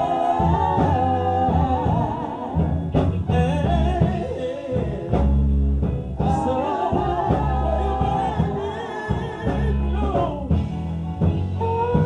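Live gospel song: a singer holding long, wavering notes over a band with bass guitar and drum kit.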